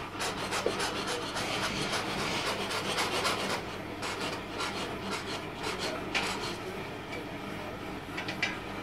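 Oxy-fuel gas torch flame hissing steadily. Over it come quick scraping and clicking strokes of pliers on the heated metal bar, densest in the first few seconds, with a few sharper clicks later.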